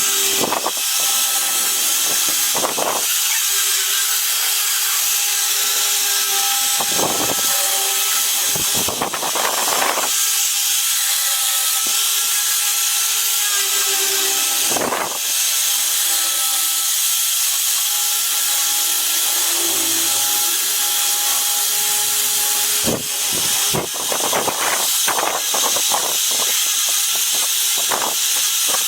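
Electric power tool running steadily on wood with a constant whine and hiss, broken by several short scraping or knocking contacts.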